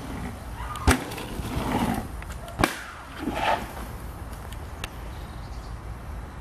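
Mountain bike wheels knocking onto a small wooden plank ramp on a dirt trail: two sharp knocks, the first about a second in and the second nearly two seconds later, with rough tyre noise on dirt around them and a lighter knock later on.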